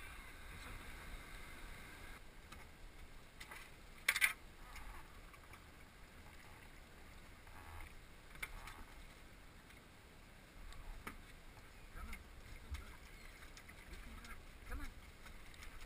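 Kayak paddling in calm water: quiet paddle splashes and drips, with one sharp, loud hit about four seconds in and a few small splashes near the end.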